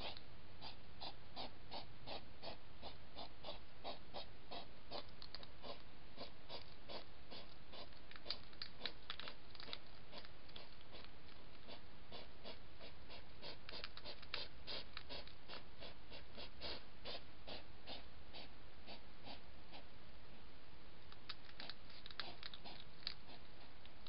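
A hedgehog eating crunchy food from a dish: quick, regular crunching clicks about three a second, with a short lull near the end, over a steady faint hiss.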